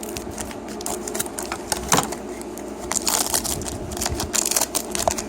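Foil wrapper of a Pokémon booster pack crinkling and tearing as the pack is opened, a rapid run of crackles and clicks with one sharp snap about two seconds in.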